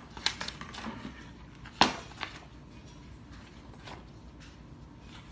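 Paper being handled: a few short rustles and sharp clicks, the loudest about two seconds in.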